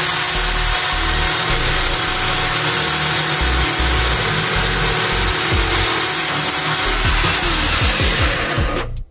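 Cheap corded electric drill mounted in a bench drill stand, running steadily at full speed with its trigger locked on while the bit is lowered into a wood block. Near the end it is switched off and its whine falls away as it spins down.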